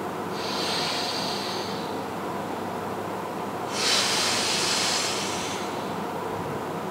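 A man's forceful, hissing breaths during Baduanjin qigong: two long breaths about three seconds apart, the second louder. The breathing is paced with the bow-drawing push, to train the diaphragm and lung capacity.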